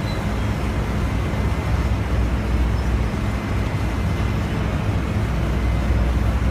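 Steady low engine rumble with a constant deep hum, the drone of a berthed container ship's machinery.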